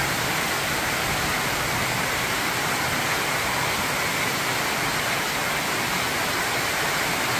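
Heavy tropical rain pouring down onto a corrugated metal roof, a dense, even hiss that holds steady throughout.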